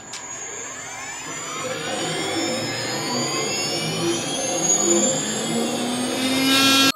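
CNC router's electric spindle spinning up to speed, a whine that rises in pitch and grows steadily louder as the motor accelerates.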